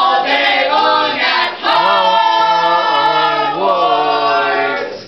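A group of voices singing a cappella in harmony, holding long notes over a lower sustained part. The singing stops near the end.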